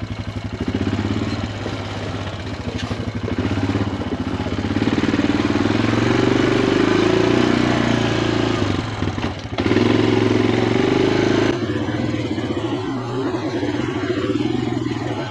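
1999 Honda Foreman 450 ATV's single-cylinder engine running while riding a trail, the engine note rising and falling with the throttle and easing off briefly about halfway through.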